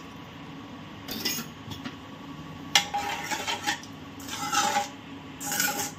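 Steel spoon scraping and clinking against a metal kadai while stirring thickened, lumpy sugar syrup thinned with water, in several short bursts, a couple with a brief metallic ring.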